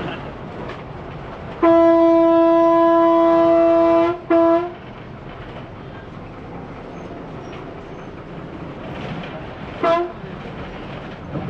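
Bus horn sounding: one long blast of about two and a half seconds, a short toot straight after, and another brief toot near the end. Steady vehicle running noise from inside the bus cabin lies underneath.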